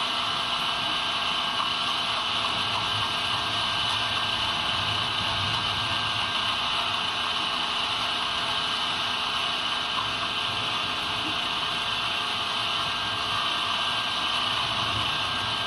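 Steady, unchanging mechanical whir with a constant high whine, like a motor-driven fan or blower running flat out.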